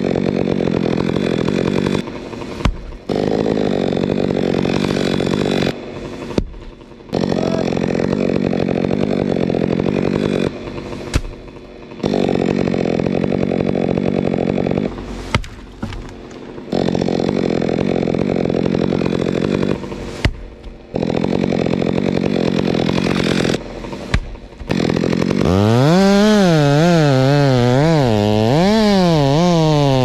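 Stihl MS 462 two-stroke chainsaw running at high revs through the fir trunk, in several stretches that cut off abruptly. About 25 seconds in, the engine's pitch starts wavering up and down as the chain loads and frees in the cut.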